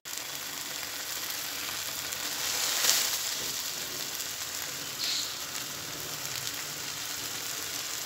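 Mustard greens (saag) sizzling in a pot on the stove: a steady frying hiss, a little louder about three seconds in.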